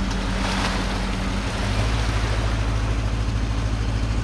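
An engine running steadily with a low hum. Just under two seconds in, its note shifts lower and it grows a little louder.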